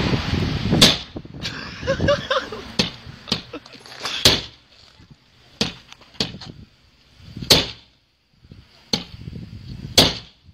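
A hammer striking a BMW's rear side window again and again: a series of sharp knocks, roughly one a second, the glass holding without shattering.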